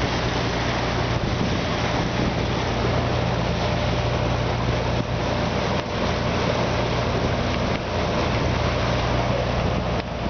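Sailboat's engine running with a steady low hum while motoring, over a hiss of water rushing along the hull.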